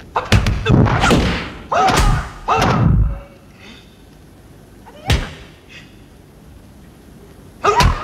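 Martial-arts film fight sound effects: a rapid run of loud punch and kick impacts mixed with fighters' shouts over the first three seconds, then a single hit about five seconds in and another near the end.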